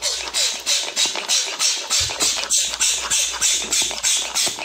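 Rapid, even swishing, about four or five strokes a second, as a handheld object is waved back and forth close to a phone microphone, over a faint low hum.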